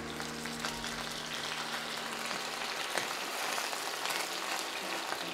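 Lamb rib chops sizzling in hot oil in a frying pan as they are laid in, a steady crackling sizzle with one sharper tick about three seconds in.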